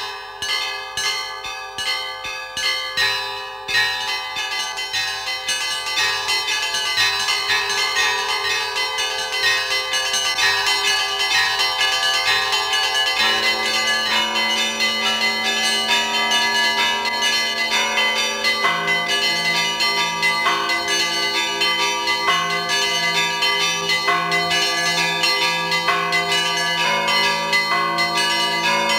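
Russian Orthodox church bells rung by one ringer pulling clapper ropes: small bells chime in a fast, busy pattern. A lower bell joins about halfway through, and an even deeper one strikes steadily from about two-thirds in.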